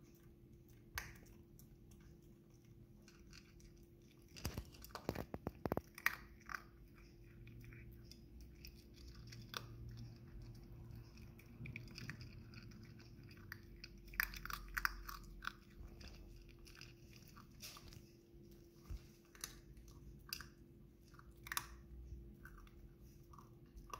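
Puppy eating dry kibble from a plastic bowl: faint, irregular crunching and chewing, busiest about five seconds in and again around fourteen seconds in.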